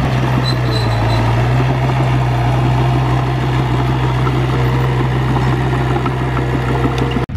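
Komatsu crawler bulldozer's diesel engine running steadily under load as the dozer pushes a blade of dirt to level the ground. The engine note rises slightly about a second in, and the sound cuts off abruptly near the end.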